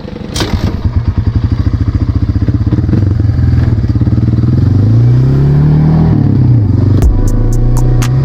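Small dirt-bike engine chugging at low revs with a pulsing beat, then revving up about halfway through and easing off. Near the end, sharp, evenly spaced ticks begin over it.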